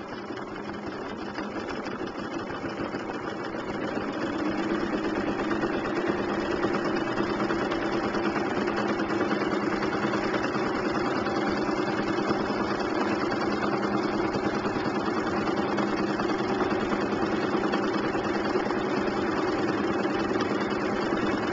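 Domestic sewing machine running steadily during free-motion quilting, the needle stitching fast and evenly; it gets louder about four seconds in as the stitching speeds up.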